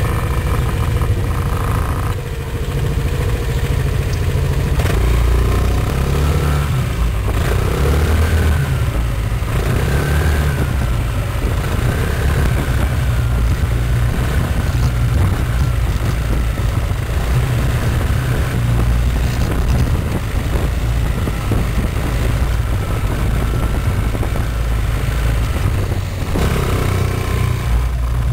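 Gilera Nexus maxi-scooter running, with the strange noise from around the rear wheel that the owner is trying to trace.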